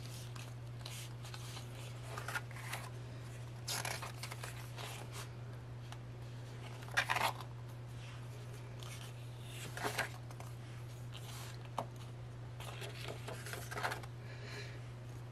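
Paper pages and card packaging being handled and turned, giving several short, scattered rustles over a steady low hum.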